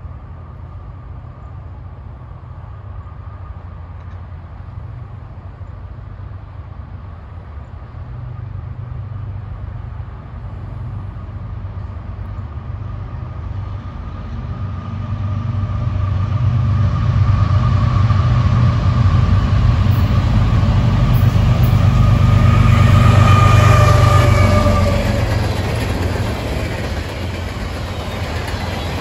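Diesel-hauled freight train approaching: a low engine drone and a steady whine grow louder, peak as the locomotives pass about 23 seconds in, and drop in pitch as they go by. Then the manifest freight cars roll past, wheels running over the rails.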